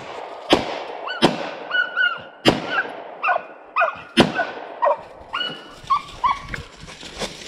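A tracking dog working a blood trail on lead, whining in many short, high cries. Sharp snaps and crunches of steps in dry leaf litter and twigs come between the cries, the loudest four in the first half.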